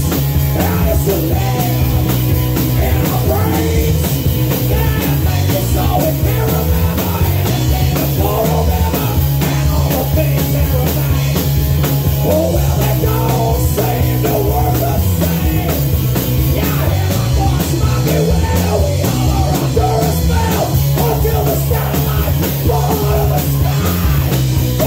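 Live rock band playing: drum kit, electric bass and amplified acoustic guitar.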